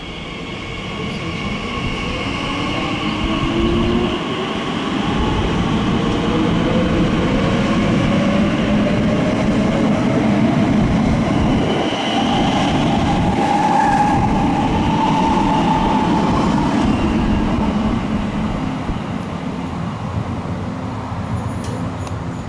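Elizabeth line Class 345 Aventra electric train pulling away and accelerating, its traction motors giving a whine in several tones that climbs steadily in pitch over the rumble of wheels on rail. The noise builds over the first few seconds and eases off in the last few as the train draws away.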